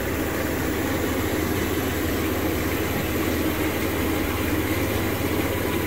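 Hot tub jets running: the water pumps hum steadily under the even rush of churning water.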